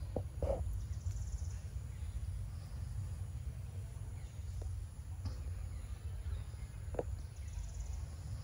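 Outdoor forest ambience: a steady low rumble with a few soft clicks, the loudest about seven seconds in, and faint high chirping of insects or birds.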